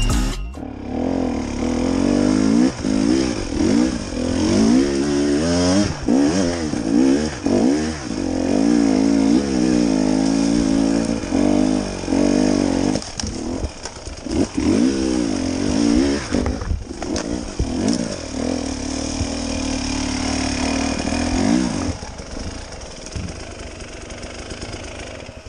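Dirt bike engine being ridden over rough trail, the revs rising and falling again and again with the throttle. It drops to a lower, quieter running about 22 seconds in.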